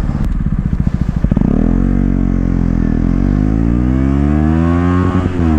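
KTM 125 Duke's single-cylinder engine through an Akrapovič exhaust pulling away at low revs, then accelerating. The revs rise, drop at an upshift about three seconds in, and climb again before a second shift near the end.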